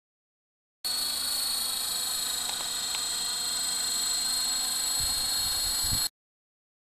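Electric RC helicopter in flight: a steady high whine from its motor and drive gears over rotor noise, cutting in abruptly about a second in and cutting off abruptly about six seconds in, with a few low thumps just before it stops.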